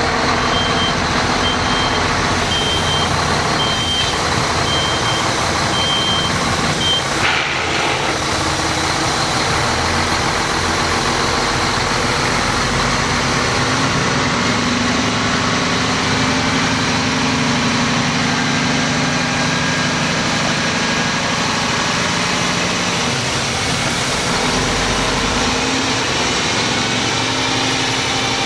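2006 Mack CH613 truck tractor's diesel engine running steadily. A reversing beeper sounds in short, irregularly spaced beeps for the first seven seconds, and a single short knock comes just after the beeps stop.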